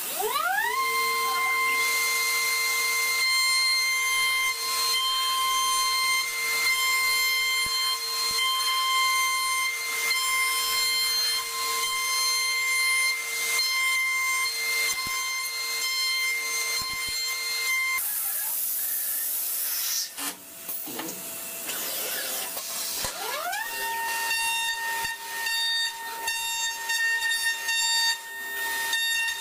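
CNC milling machine spindle spinning up with a rising whine, then a steady high whine while the end mill cuts the aluminium block, with light ticking from the cut. The whine stops about 18 s in. A few seconds of hissing noise follow, then the spindle spins up again about 23 s in and runs steady.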